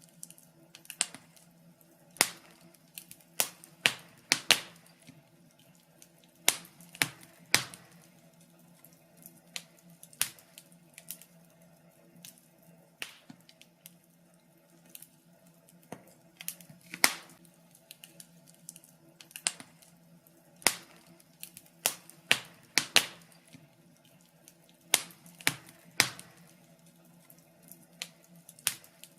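Wood fire crackling: irregular sharp pops and snaps, sometimes a few in quick succession, over a faint steady low hum.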